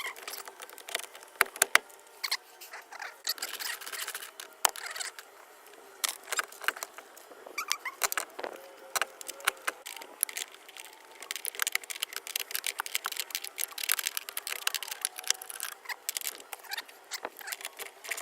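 Rapid, sped-up clicks, taps and clanks of hand tools on the car door's hinge, one quick knock after another with no low end.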